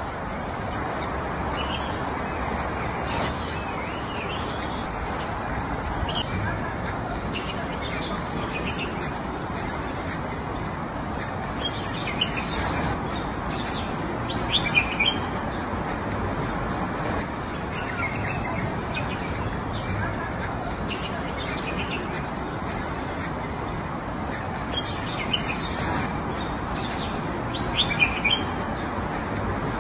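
Small birds chirping in short, scattered calls, a few louder ones near the middle and end, over a steady background hiss.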